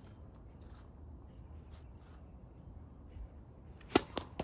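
Tennis serve: one sharp, loud racket-on-ball hit about four seconds in, followed within half a second by two lighter knocks.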